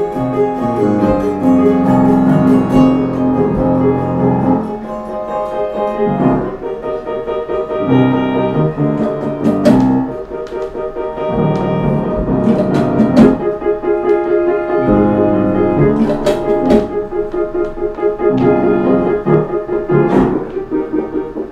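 Piano playing slow, held chords, with acoustic guitar alongside; from about ten seconds in, sharp single notes stand out over the held chords.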